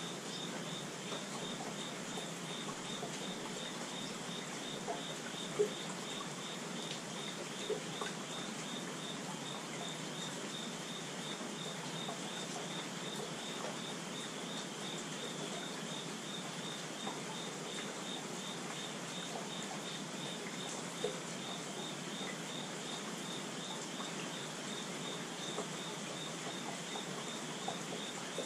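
Steady rain falling on a wooden deck and plant leaves, with a few louder single drops. Over it, an insect keeps up a regular high-pitched pulsing chirp.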